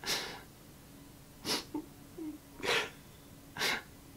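A man crying: four short, sharp sniffling breaths, roughly one a second, with quiet between them.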